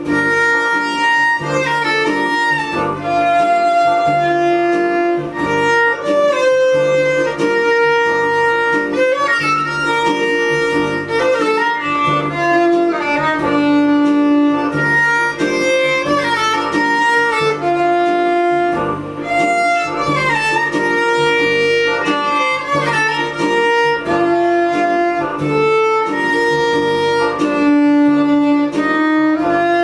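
Violin playing a melody of held notes with slides between them, over a low accompaniment with a steady, even pulse.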